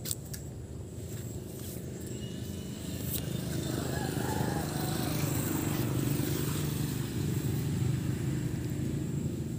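A motor engine running steadily, a low rumble that grows a little louder about three seconds in, with a few handling clicks at the start.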